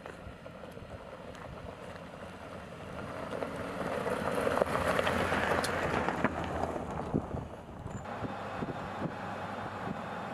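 Jeep Gladiator pickup driving past on a dirt track. Engine and tyre noise rises to its loudest as it passes, about halfway through, with gravel crackling under the tyres. About eight seconds in the sound changes to a steadier running noise on a paved road.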